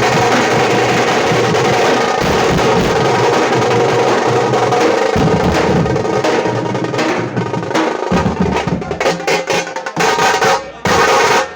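Tamate frame drums beaten with sticks in a fast, dense roll. In the second half the roll breaks into separate strokes that come further apart, then stop near the end.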